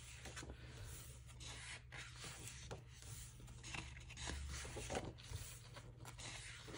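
Glossy photobook pages being turned by hand: soft paper rustling and brushing, with several faint flicks as pages flip over.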